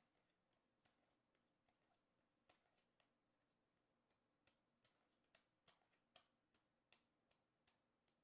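Near silence with faint, irregular soft ticks of paper football trading cards being slid and flicked through by hand, coming a little more often in the second half.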